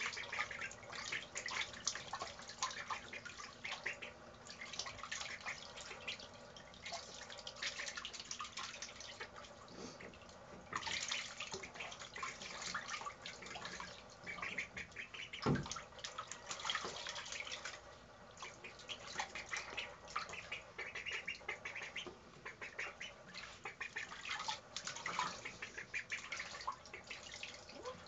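Young domestic ducks splashing and dabbling their bills in bathtub water: a steady patter of quick splashes and pecks, with occasional duck calls. A single thump about halfway through.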